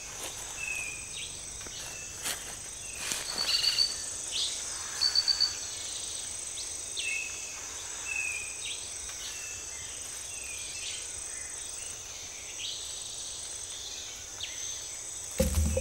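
Tropical forest ambience: a steady high-pitched insect drone, with short high calls repeating every second or two and two quick runs of rapid chirps a few seconds in.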